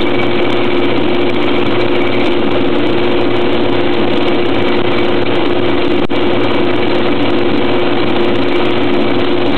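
Metal lathe running steadily as it turns a 3/4-inch steel pin, a loud, even drone that keeps one pitch.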